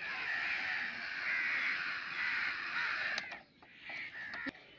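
Small geared DC motors of a toy RC tractor whirring for about three seconds, then stopping abruptly, followed by a couple of light clicks.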